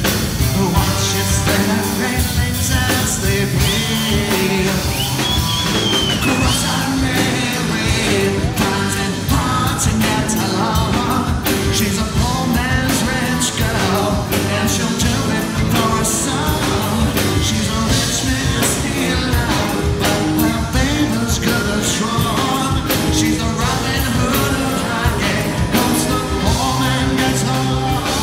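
Rock band playing live: electric guitars, bass guitar and drum kit, with a man singing.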